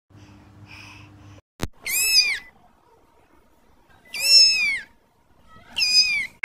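A kitten mewing three times, short high-pitched cries about two seconds apart, each rising then falling in pitch. Before them there is a faint low hum, cut off by a brief click about a second and a half in.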